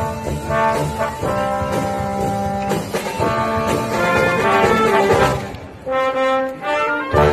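Live wind band with brass and sousaphones playing a tune. The band thins out briefly just before six seconds in, then comes back in full and loud near the end.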